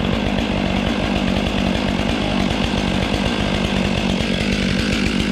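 Stihl 500i two-stroke chainsaw on an Alaskan chainsaw mill running steadily at high revs, ripping a red elm log lengthwise for its first level cut.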